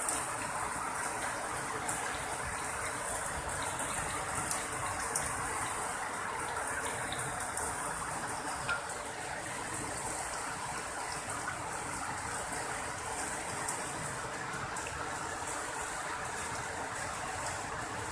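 Steady heavy rain falling on a wet concrete yard, an even hiss with a few faint ticks of drops or small ice pellets.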